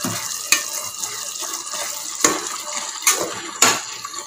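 Boiling coconut milk mixture sloshing as a metal ladle stirs it in a pot, with a few sharp knocks of the ladle against the pot.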